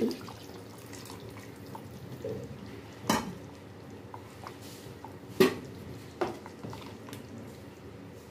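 Tamarind water poured into a pot of curry, the pour trailing off into drips right at the start, then three sharp knocks of a utensil against the aluminium pressure-cooker pot, about three, five and a half and six seconds in.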